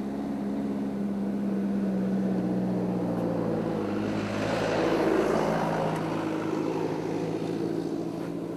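Vehicle engine running steadily; its note drops a little about three and a half seconds in, and a broader rushing noise swells between about four and six seconds in.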